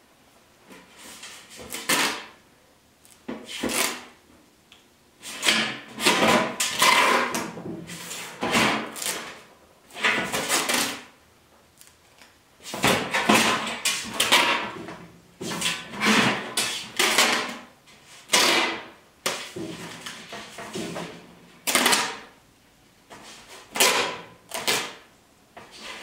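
Masking tape being pulled off the roll and wrapped around a black sheet-metal stovepipe section to mark a cut line, in many short tearing bursts with pauses between.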